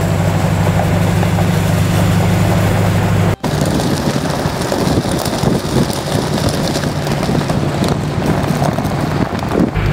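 Supercharged Ford Coyote 5.0 V8 in a 1978 F350 running steadily as the truck drives, a smooth, even engine note. About three and a half seconds in the sound cuts off briefly and comes back rougher and less even, with more hiss. Near the end it returns to the steady engine drone.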